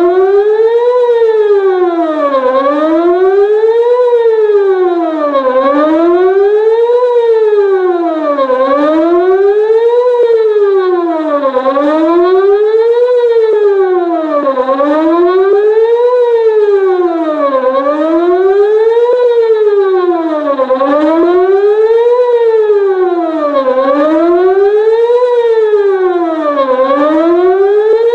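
Whelen WPS-2906 electronic outdoor warning siren sounding a loud wail whose pitch rises and falls evenly, one full up-and-down cycle about every three seconds.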